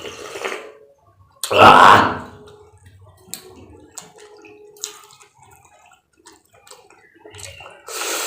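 A loud slurp of bean-sprout soup broth about a second and a half in, followed by faint wet clicks and smacks of eating.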